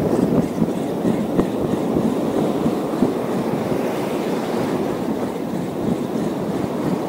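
Steady wind buffeting the microphone over the rush of sea waves washing on a rocky shore.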